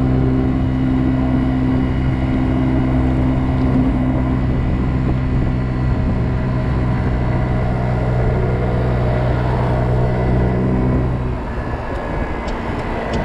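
Kymco Agility 50 scooter's 50cc single-cylinder engine running steadily at full throttle, at about 35 mph, its top speed, with wind and road noise over it. The steady engine note drops away about eleven seconds in.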